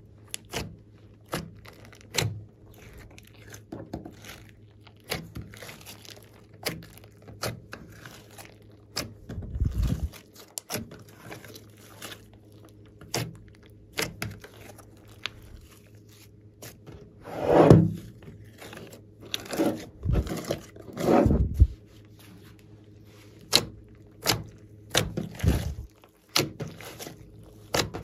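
Glossy slime squished and kneaded by hand, with many small sharp clicks and pops and a few louder, longer squelches past the middle.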